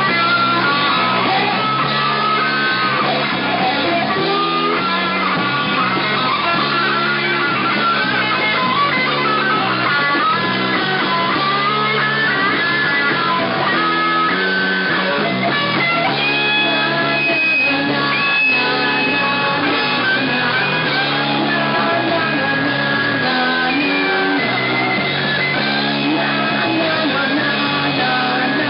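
A rock band playing loud live: electric guitars and an electric bass through amplifiers, without a break.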